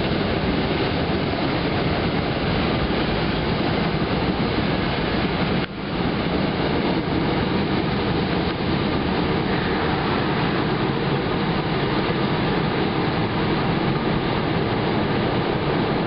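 MBTA commuter rail train running past the platform and into the tunnel: a steady, loud rush and rumble of the coaches on the rails, with one brief dip about six seconds in.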